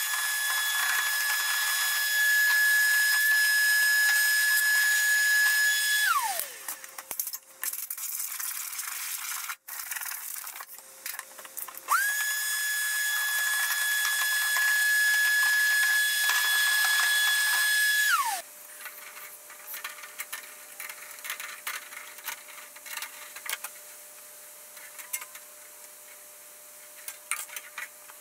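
Vacuum cleaner running with a steady high whine. It is switched off about six seconds in, its pitch falling as the motor winds down, starts up again about twelve seconds in, and is switched off again about eighteen seconds in. Between and after the runs there are light clicks and knocks of handling.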